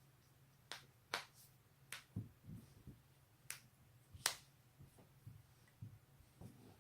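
Neck and back joints cracking: a series of about five sharp, quick pops, the loudest about four seconds in, with softer low thuds between them.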